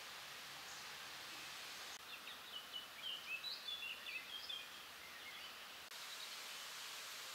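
Steady outdoor background hiss. About two seconds in, a small bird gives a quick twittering run of short high chirps lasting about two and a half seconds.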